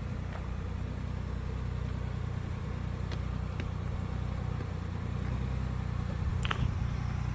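Ford Bronco's engine running steadily at low revs as it crawls slowly over rocks, with a few faint clicks near the middle and toward the end.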